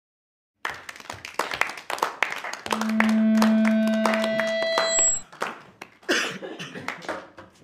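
Irregular clicks and knocks starting about half a second in, with a steady low tone held for about two seconds near the middle.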